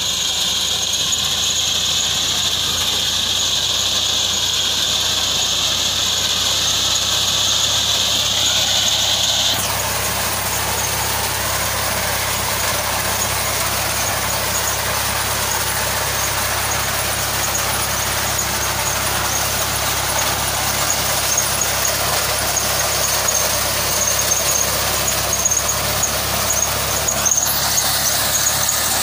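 Fiat 480 tractor's three-cylinder diesel running steadily, driving a tractor-mounted reaper that cuts standing maize and sorghum fodder, with a high-pitched whine over the engine. The sound changes abruptly about ten seconds in and turns noisier.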